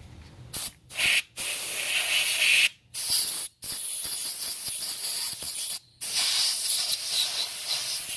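Can of compressed air sprayed in about six hissing blasts with short gaps between them, the longest about two seconds, blowing loose metal drilling shavings out of a drilled-out TPMS tyre valve stem.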